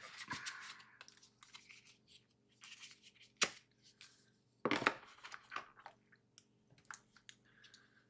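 Paper and cardboard packaging being handled and rustled, with a sharp tap about three and a half seconds in and a louder knock just before five seconds.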